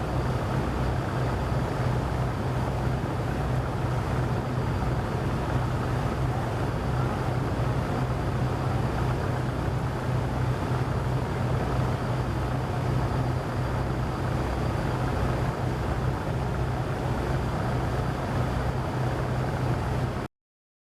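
A river vessel's engine running with a steady low drone and a slow pulsing throb, under an even rushing noise. The sound cuts off abruptly near the end.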